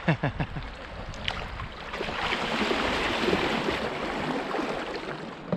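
Rushing river water as the canoe runs through a small riffle, an even hiss that swells about two seconds in and eases near the end.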